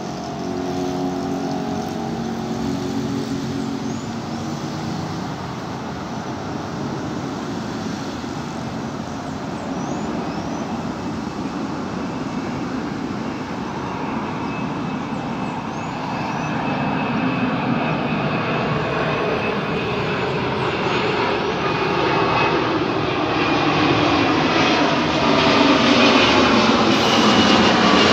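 An Airbus A330neo's Rolls-Royce Trent 7000 turbofans on final approach: a steady jet rumble and hiss that grows louder as the airliner comes in. In the last dozen seconds, falling sweeps run down through the sound.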